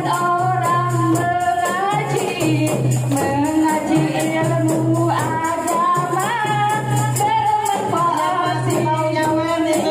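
A woman singing into a microphone over music, with a group of women shaking and striking tambourines in a steady rhythm.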